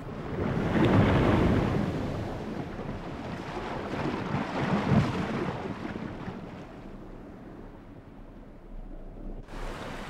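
Water rushing and sloshing as grey whales swim at the surface, swelling twice, about a second in and again around five seconds, then easing off.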